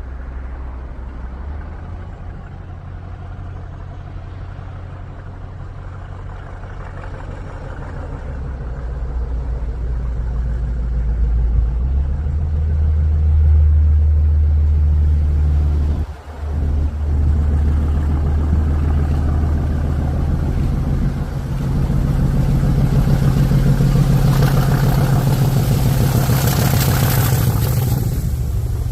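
Class 50 diesel locomotive's English Electric 16-cylinder turbocharged engine working hard up a gradient, growing louder as it approaches. The sound dips for a moment just past halfway, and a rushing hiss builds near the end as it passes close.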